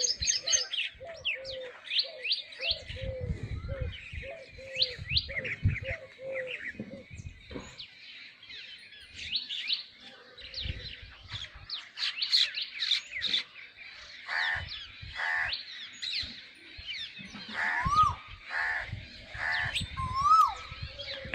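Birdsong: an Asian koel calling among many birds chirping, with a low cooing note repeated about twice a second through the first seven seconds. Occasional low rumbles sound underneath.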